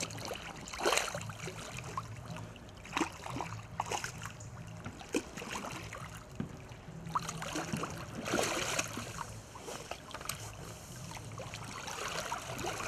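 Water splashing and sloshing as a landing net holding a fish is worked through shallow river water and lifted out, with wellington boots wading at the edge. The splashes come irregularly, louder about a second in, again around three to four seconds, and most strongly around eight to nine seconds.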